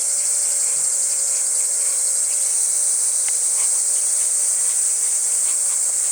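Insect chorus at a campsite: a steady, high-pitched trill that does not let up.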